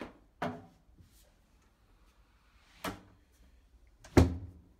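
Four sharp knocks and thuds of things being handled and set down, the last one, about four seconds in, the loudest.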